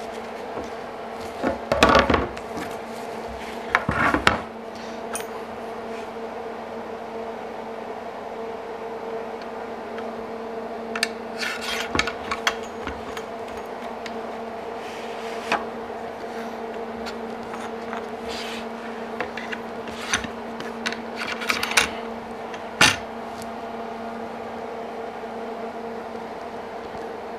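Aluminium guide-track rails of a Kreg Accu-Cut system sliding and rubbing against each other as they are fitted end to end, with scattered clicks and knocks of handling. The knocks are loudest about two and four seconds in and near the end, over a steady low hum.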